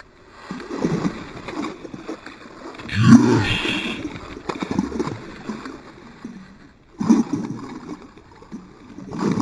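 Hooked peacock bass thrashing and splashing at the surface beside the boat, in several separate bursts. A short vocal exclamation from the angler comes about three seconds in.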